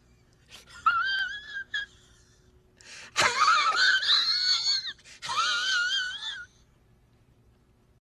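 High-pitched wailing sound effect, a wavering tone with a fast vibrato, in three phrases: a short one about a second in, a louder one that swoops up at about three seconds, and another after five seconds.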